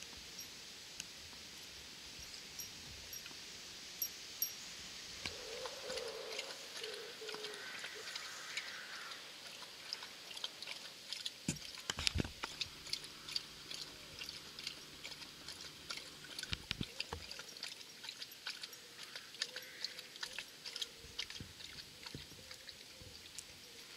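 German Shepherd lapping water from a stainless-steel bowl: a long, quick run of wet laps, with one sharp knock against the bowl about halfway through.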